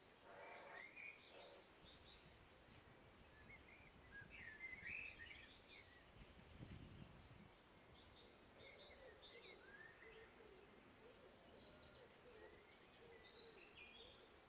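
Faint chorus of several songbirds chirping and trilling, with short high calls overlapping throughout and a lower wavering call joining in the second half. A brief low rumble comes about seven seconds in.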